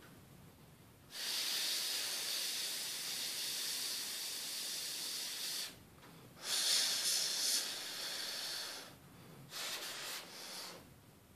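Aerosol can spraying in three hissing bursts, the first about four seconds long and the last short, as the phone's parts are sprayed clean.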